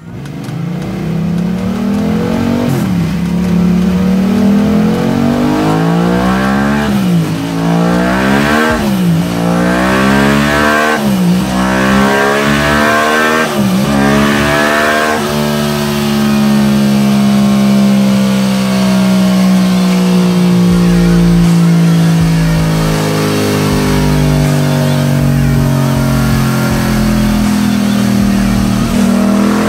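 Yamaha MT-07 parallel-twin engine run hard on a roller power dyno. In the first half the revs climb and drop sharply several times as it shifts up through the gears. After that it holds high, steady revs, sagging slowly and climbing again near the end.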